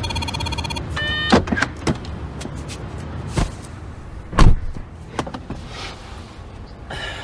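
Car sounds from a film's soundtrack: a short electronic beep, then a rising chirp, followed by scattered clicks and knocks of a car door and window, with a heavy thump about four and a half seconds in.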